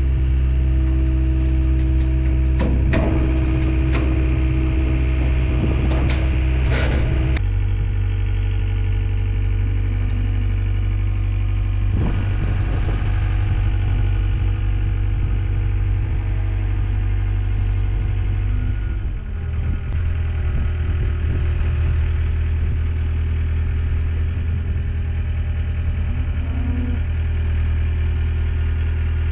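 A machine's engine running steadily, shifting its speed about 7 seconds in and again about 19 seconds in, with a few metal knocks and clanks in the first several seconds.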